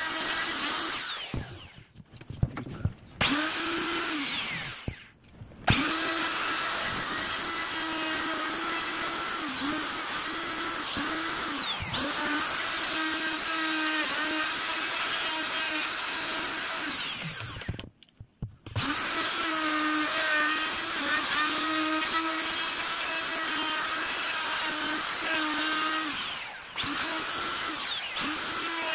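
Endico PARA12TPR plunge router running at full speed while its bit carves a relief pattern into wood, a steady high motor whine whose pitch dips briefly now and then. The sound cuts out abruptly about four times.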